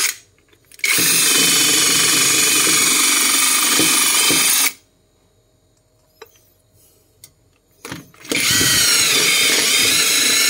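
Cordless impact driver boring a hole into the floor with a drill bit, its motor running with a steady whine. It stops just at the start, runs again for about four seconds, pauses for about four seconds, and starts again near the end.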